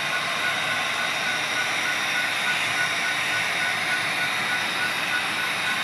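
HO scale model trains running, a steady hissing rush with a thin high whine and a faint tone pulsing several times a second.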